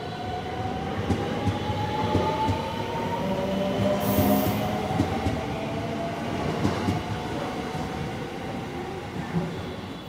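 JR West Haruka limited express electric train pulling out and gathering speed, its inverter-driven traction motors whining and rising in pitch over the noise of wheels on rail.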